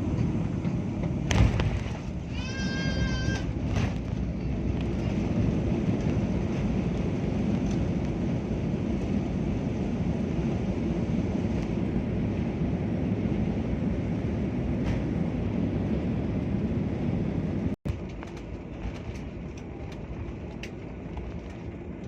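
Airliner cabin noise during the landing rollout: a steady low rumble of engines and wheels on the runway, with a single sharp thump about a second and a half in. Near the end the rumble drops to a quieter level.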